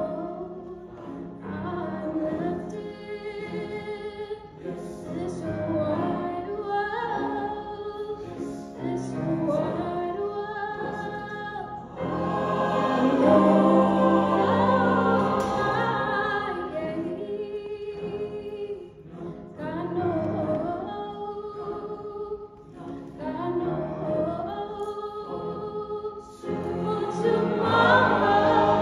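Mixed choir singing a spiritual, with grand piano accompaniment. The choir swells louder about twelve seconds in and again near the end.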